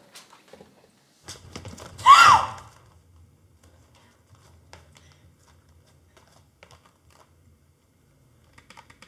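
A few light clicks, then a woman's short shrill cry about two seconds in, rising and falling in pitch. After it, mostly quiet with a faint low hum and a few small ticks.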